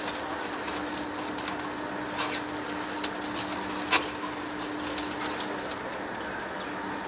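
Heavy-duty face lathe running, a steady machine hum with two held tones, broken by scattered sharp clicks, the clearest about two and four seconds in.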